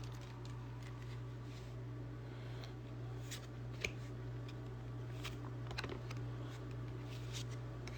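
Faint scattered ticks and soft rustles of trading cards being handled and flipped through, over a steady low hum.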